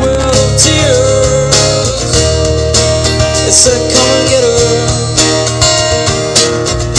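A live acoustic rock band playing, with strummed acoustic guitars, a lead guitar line with bending notes, bass and drums.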